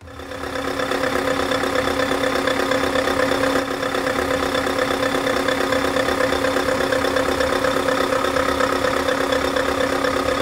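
Scania 770 S truck's V8 diesel idling steadily, a constant running note with a fast, even pulse, fading in over the first second.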